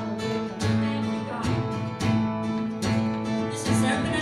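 Live worship band playing an instrumental passage: strummed acoustic guitar over electric guitar and a bass line that changes note about once a second.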